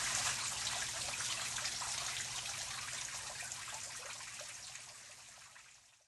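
Water trickling steadily in a small indoor terrarium pond, fading out over the last couple of seconds.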